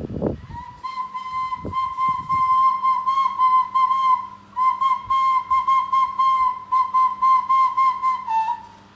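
A loud, high whistle held on one note with a fast wavering. It breaks once briefly about halfway through and dips in pitch just before it stops.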